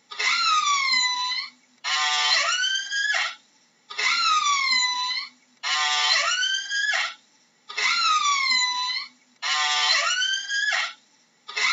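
Orca calls: a repeating series of pitched calls, each about a second and a half long, gliding down and up in pitch, with short silent gaps between them, about one call every two seconds.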